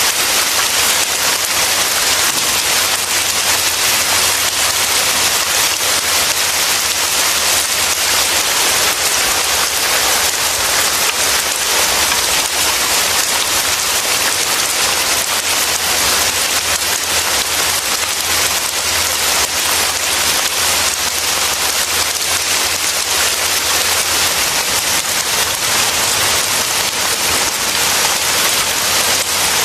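Steady rain falling: a dense, even hiss of countless drops, with a low steady rumble underneath.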